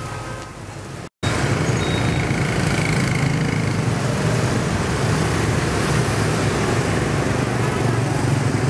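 Rain falling, then about a second in an abrupt cut to loud, steady street traffic: a stream of motor scooters running past on a wet road.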